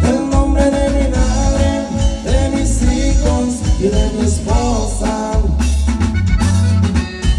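A Latin band playing a song with a singer, heavy bass and drums.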